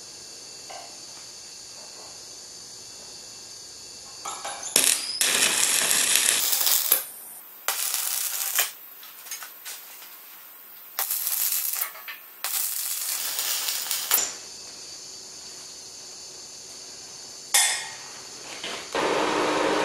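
Electric arc welding in several short runs of steady crackling hiss, a second or two each with pauses between, starting about four seconds in: short welds joining the steel parts of a homemade sheet metal brake.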